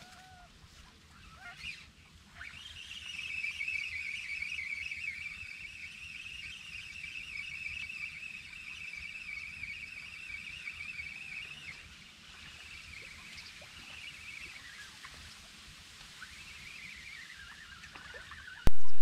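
Spinning reel on a feeder rod being cranked to retrieve a hooked perch, giving a steady whirring whine that falls in pitch as the cranking slows in the last few seconds. A sudden loud click right at the end.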